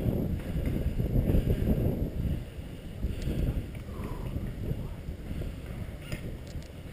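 Wind buffeting the head-mounted camera's microphone, a low rumble strongest in the first two seconds and easing after. A few faint clicks come near the end.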